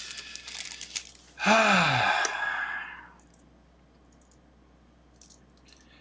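A small plastic parts bag crinkling and clicking as it is handled, then about a second and a half in a man's loud voiced sigh falling in pitch. After that it is quiet but for a few faint clicks of small parts.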